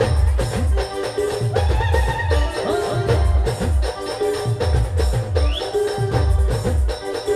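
Adivasi brass-and-drum band playing timli dance music: fast, pounding low drum strokes in a steady repeating rhythm under a looping melody, with constant jingling percussion on top.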